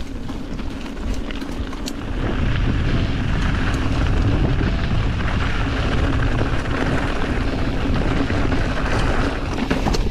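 Wind rushing over the microphone and mountain bike tyres rolling over dirt and loose stones, louder from about two seconds in as the bike starts down a rocky descent.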